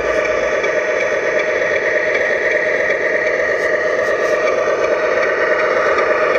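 1/14-scale RC tractor truck running with a steady engine-like hum, thin and without bass, at an even level.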